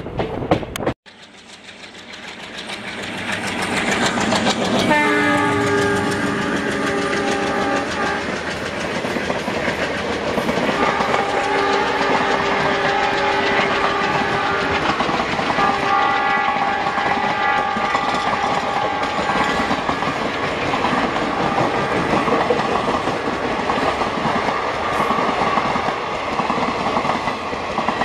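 Two trains passing on adjacent tracks, heard from an open coach window: a steady rush of wheels and rail clatter that builds over the first few seconds. A diesel locomotive horn sounds in long blasts about five seconds in, again around eleven and sixteen seconds, and once more near the end.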